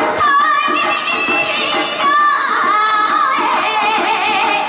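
Live Japanese folk song accompanying a stage dance: a singer holding long, wavering notes with vibrato over plucked three-string lutes.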